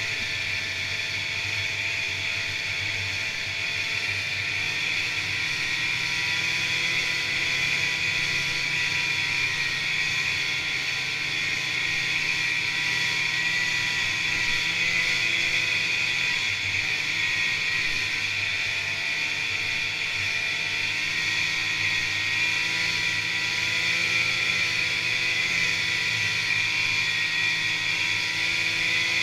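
Snowmobile engine running at a steady trail-cruising speed, its pitch drifting slightly up and down, with a steady hiss of track and wind noise.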